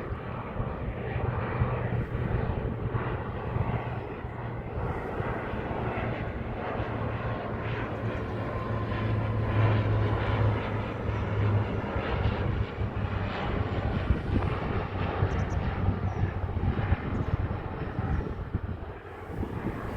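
Airliner engines running loud and steady as a plane moves close by, the noise swelling toward the middle and holding.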